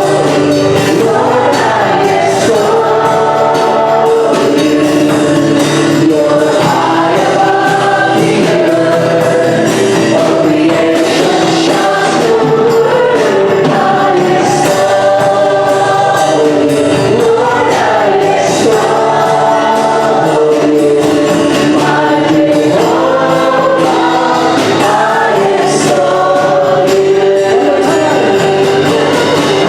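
Choir or worship team singing a gospel praise song in several voices, with instrumental accompaniment.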